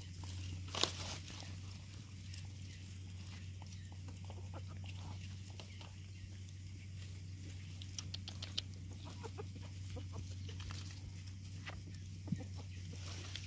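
A dog eating rice from a bowl while puppies suckle beneath her: scattered soft clicks and smacks, a little louder about a second in, around eight seconds and near the end, over a steady low hum.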